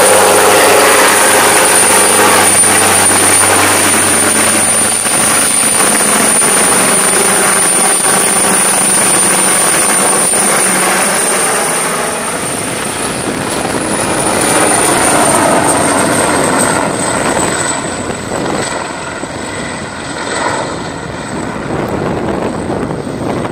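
Full-size turbine helicopter flying past low and then away: a rotor beat under a high, steady turbine whine. Past the middle the whine drops slightly in pitch and the whole sound fades as the helicopter moves off.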